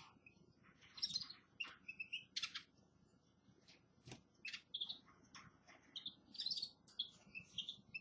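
Small caged finches chirping: short calls and twitters come in quick, scattered runs, with one sharp click about four seconds in.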